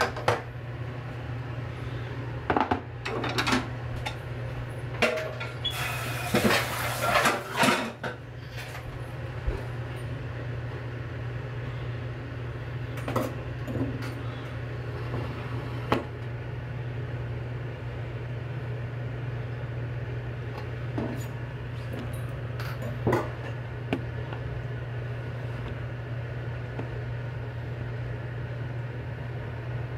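Kitchen utensils and dishes being handled: scattered knocks and clicks, with a denser stretch of clattering and rustling about six to eight seconds in. The knocks thin out after about sixteen seconds, and a steady low hum runs underneath.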